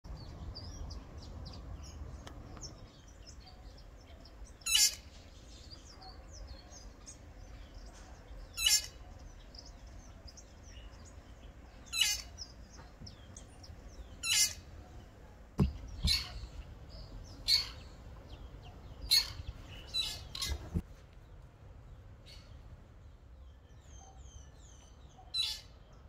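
Two fork-tailed drongos calling back and forth with short, sharp calls every few seconds, over fainter chirping from other birds. Two low thumps come about midway.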